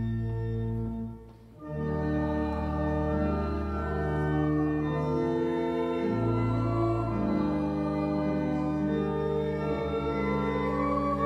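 Church organ playing slow, held chords, with a short break about a second in before the next chord starts.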